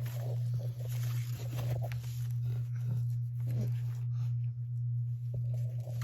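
Steady low hum, with faint rustling as a plastic placemat is handled.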